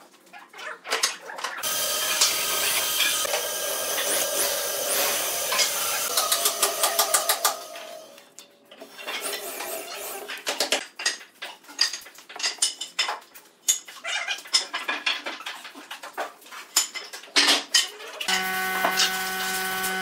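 Irregular taps, clicks and light knocks from hand work on a pine table frame. About two seconds in, an electric drill runs steadily for about six seconds. Near the end a steady hum with several held tones starts.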